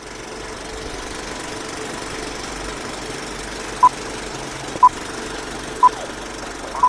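Old film-leader countdown effect: the steady rattle and crackle of a film projector running, with a short high beep once a second, four times, starting about four seconds in.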